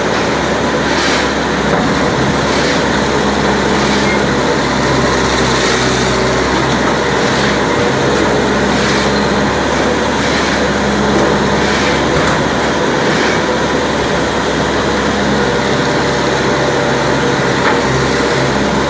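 Backhoe loader's diesel engine running steadily under work, its low note shifting up and down now and then.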